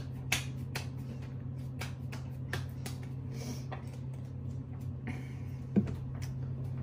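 Light, irregular taps and pats of hands patting serum into the face and handling a small skincare bottle, with one sharper knock near the end. A steady low hum runs underneath.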